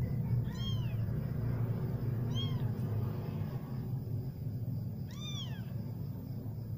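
Young kitten mewing three times, short high-pitched mews that each rise and fall in pitch.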